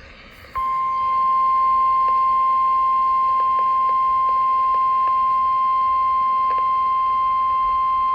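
Emergency Alert System attention tone for a tornado warning: a single steady, loud beep that starts about half a second in and holds one unchanging pitch. It is the alarm that announces the warning message.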